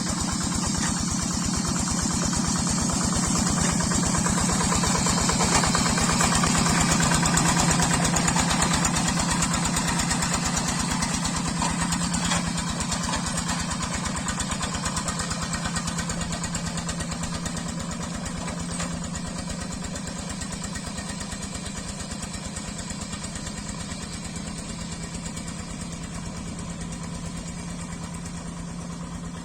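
Quick G3000 Zeva hand tractor's single-cylinder Yanmar diesel chugging steadily as it works deep, wet paddy mud. It grows louder over the first several seconds, then slowly fades.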